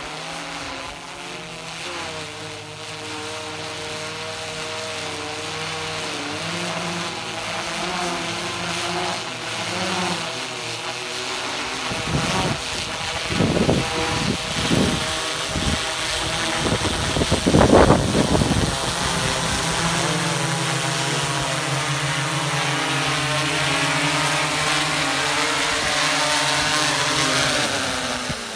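DJI Matrice 210 RTK quadcopter's propellers humming as it comes in and lands on return-to-home, growing louder as it nears, with rushes of wind noise about halfway through. The motors spin down at the very end.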